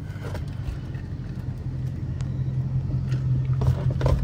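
Dodge Challenger R/T's 5.7-litre HEMI V8, heard from inside the cabin as a steady low engine drone that grows louder over the few seconds as the car pulls along.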